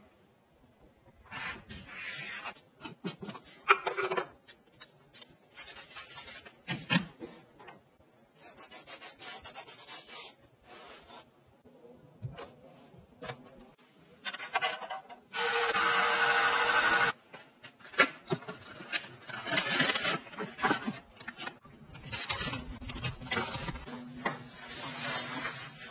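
A run of close-up handling sounds from household items: rubbing, scraping and soft knocks. About halfway through, a loud steady noise lasts about two seconds.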